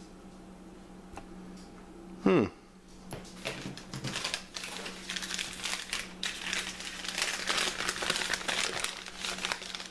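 Newspaper crinkling and rustling as small rifle parts are unwrapped from it by hand, dense and irregular. About two seconds in, a single short, loud squeal falls steeply in pitch.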